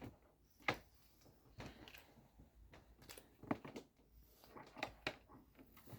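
Faint handling noise from a hot comb being drawn back through the hair: soft rustling with a few sharp clicks, the clearest about a second in, halfway through and near the end.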